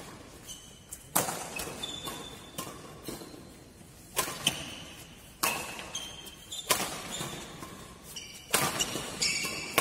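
Badminton rackets striking a shuttlecock back and forth in a doubles rally, a sharp hit about every second or so, echoing in a large hall. Between the hits, shoes squeak briefly on the court.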